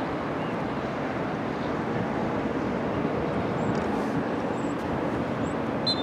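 Steady outdoor background noise with no clear single source, with a few faint high chirps about halfway through and a short high tone right at the end.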